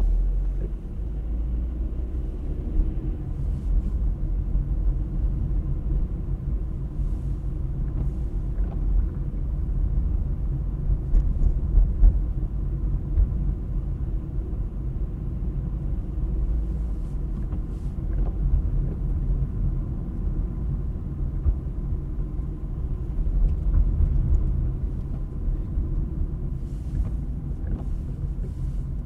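Car on the move: a steady low rumble of engine and tyre noise.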